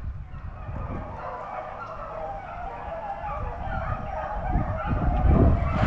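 A pack of rabbit hounds baying and yelping together, many overlapping voices, on a rabbit they have cornered in a thicket; the cries grow louder near the end. A heavy low rumble runs underneath.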